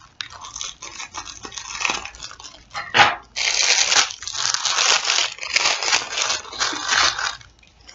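Plastic packaging crinkling and rustling as it is pulled and torn open to unwrap an apron, with a sharp click about three seconds in.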